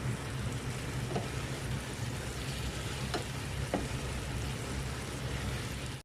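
Chicken sizzling as it fries in a pan, a steady hiss, with a few light taps as it is stirred.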